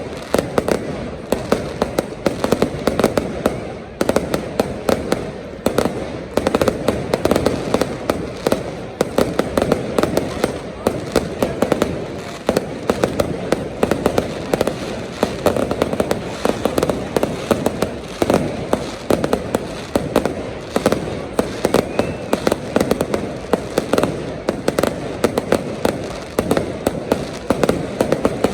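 Fireworks display going off continuously: rapid, dense crackling bangs and pops, many a second, with no let-up, over the voices of a crowd.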